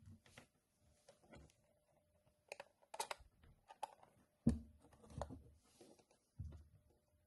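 Light, irregular clicks and taps from handling multimeter test probes and the meter on a workbench, with a duller knock about four and a half seconds in.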